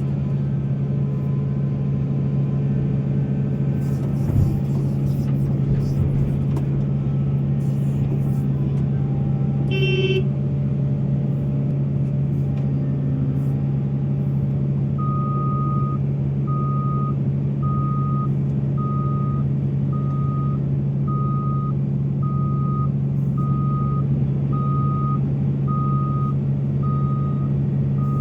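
Heavy mining machinery's diesel engine running steadily with a deep hum, a short horn blast about ten seconds in, then a reversing alarm beeping about once a second from about halfway on.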